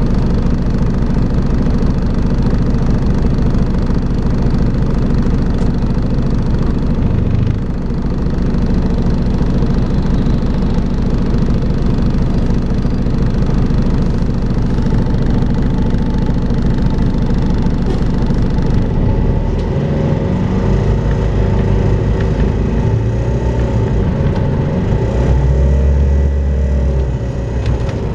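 Volvo B5LH hybrid double-decker bus running, heard on board, with the steady vacuum-cleaner-like whine known as 'hoovering'. About two-thirds of the way through, the pitch starts to rise and fall as the drive speeds up and slows.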